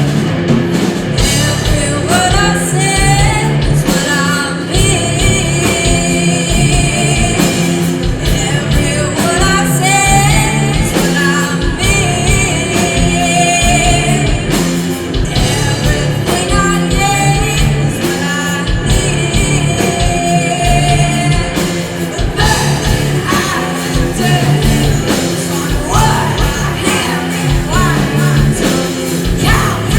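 Rock band playing loud, heavy music, with a singer holding long wavering and wailing notes over guitar and drums.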